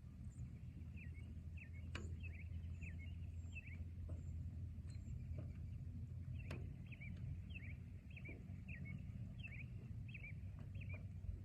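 Forest ambience: a steady low rumble under a bird calling in two runs of short, quickly repeated downward chirps, with a few sharp ticks scattered through it.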